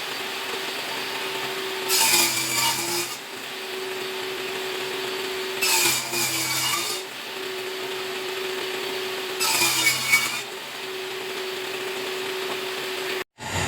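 Table saw running steadily, with three passes through white oak boards about four seconds apart. On each pass a louder cutting noise rises and the motor's pitch dips under the load.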